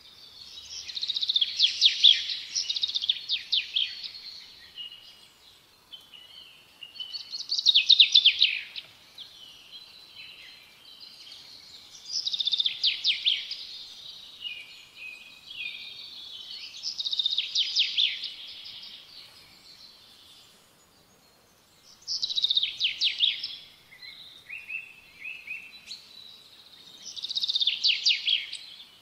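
A songbird singing, one short trilling phrase repeated about every five seconds.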